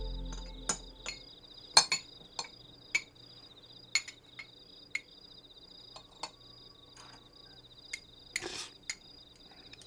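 Chopsticks and porcelain bowls clinking at a dinner table, a dozen or more sharp separate clinks, over a steady background of chirping crickets. Music fades out in the first second, and there is a brief noisy sound near the end.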